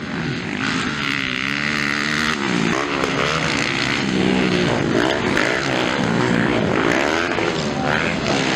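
Several motocross dirt bike engines revving hard, their pitch repeatedly rising and falling with the throttle as they race over the track.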